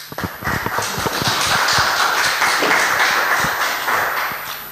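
Audience applauding: many hands clapping together, building up quickly and fading out near the end.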